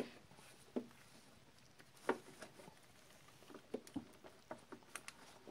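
Metal socket tapping and clicking against a bolt head as it is fitted on to test the bolt's size: a handful of faint, sharp clicks, the loudest about two seconds in.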